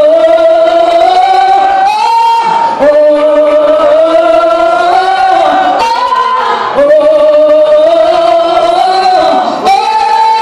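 A woman singing a gospel solo into a microphone, wordless long held notes with vibrato. Each note creeps slowly upward for about three seconds and is broken by a short higher note.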